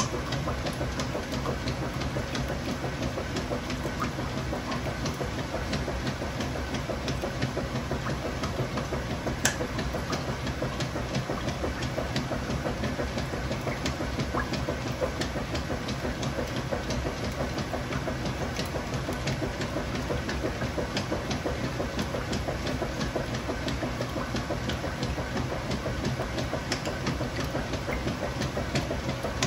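Kenmore Ultra Fabric Care top-loading washing machine with a KitchenAid Dual Action Agitator running steadily: a constant low motor hum under a busy wash of noise scattered with many small ticks.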